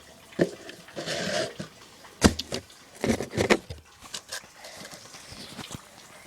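Irregular rustling and a series of sharp knocks and clicks, as of things being handled close to the microphone.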